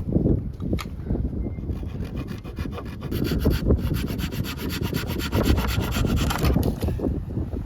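Hand saw cutting wood in quick, rasping strokes that build up about two seconds in and stop shortly before the end, over a low rumble of wind on the microphone.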